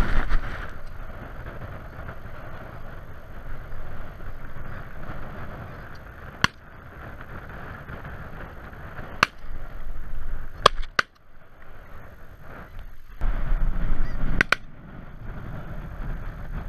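A large flock of snow geese calling continuously overhead, a dense chorus of honking. Several sharp cracks cut through it at irregular intervals, about five in all.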